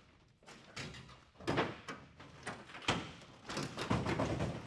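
Several knocks and thumps of crumpled light-aircraft wreckage being handled and shifted by hand, the torn metal panels knocking and rattling. The sharpest knock comes about three seconds in, and there is a denser run of knocks near the end.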